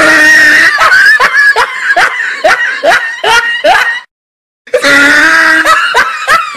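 Loud, high-pitched screaming and laughing voices, in quick repeated falling cries about two or three a second, broken by a half-second of dead silence about four seconds in.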